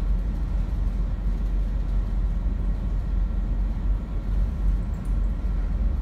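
Continuous low rumble with an uneven wash of noise on board a tanker underway in rough seas: wind, sea and ship's drone together.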